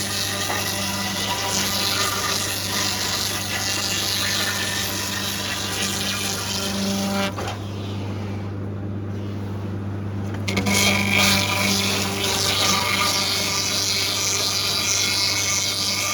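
Sawmill machinery running: a steady motor hum under a rushing, water-like noise. The rushing thins out for a few seconds around the middle, then comes back stronger.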